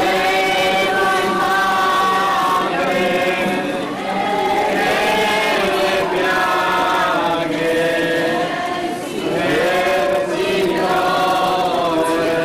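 A group of voices singing a slow religious chant in long held notes, phrase after phrase, with brief breaks between phrases every few seconds.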